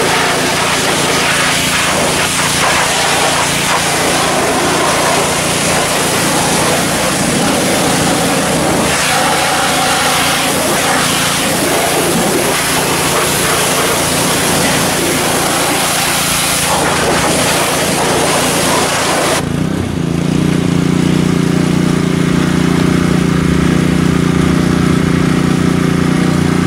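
Pressure washer spraying water hard onto a car's engine bay, with the washer's small motor running steadily underneath. About nineteen seconds in the spray hiss cuts off suddenly and the motor hums on alone.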